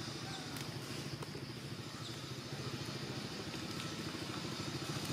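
A small engine running steadily with a rapid low pulse, growing louder near the end.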